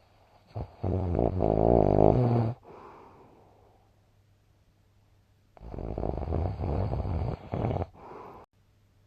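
A person snoring: two loud snores about five seconds apart, each followed by a quieter breath, over a steady low hum.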